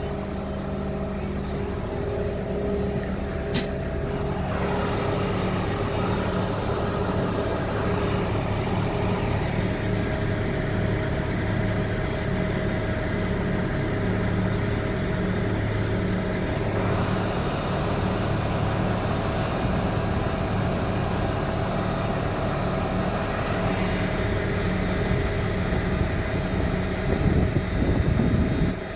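Diesel engine of an ÖBB class 5047 railcar running steadily with a low, even hum. A single click comes a few seconds in, and a few louder rumbles near the end.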